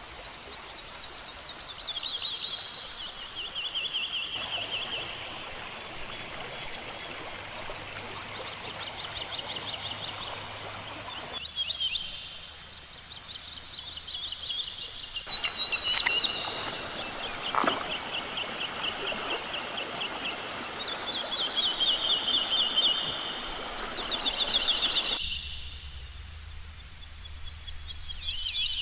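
Tropical rainforest ambience: a chorus of high, rapidly pulsing calls that slide down in pitch and repeat in long trains, over a steady background hiss.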